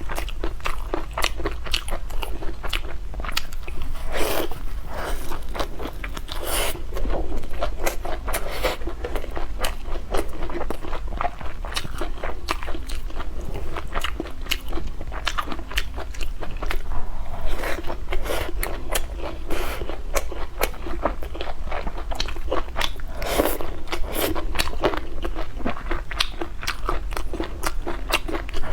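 Close-miked eating: continual biting, crunching and chewing, many small irregular crackles and smacks, over a steady low hum.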